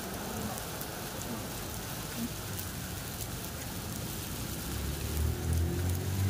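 Light rain falling: a steady even patter with scattered drop ticks. A low steady hum joins near the end.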